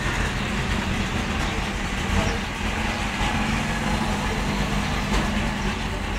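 Steady low mechanical hum under an even hiss, like a vehicle engine running.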